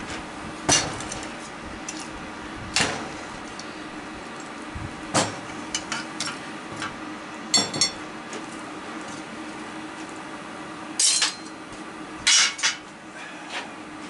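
Loose ceiling fan parts, plastic blade brackets and small screws, being set down and tossed onto a work table: about eight irregular clinks and clatters.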